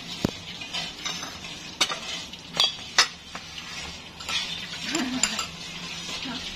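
Metal spoons clinking against ceramic bowls and plates, about half a dozen sharp clinks and taps, over a steady background hiss.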